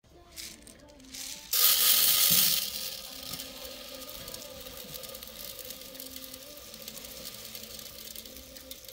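Dry rice grains poured from a plastic bottle into a metal mess tin, pattering and hissing against the metal. A loud rush of grain comes about a second and a half in, then eases to a steady trickle.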